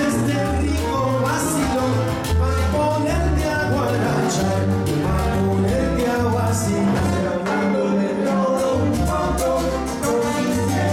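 Live salsa band playing: an upright bass repeating a syncopated figure under piano, percussion and horns, with a male lead singer.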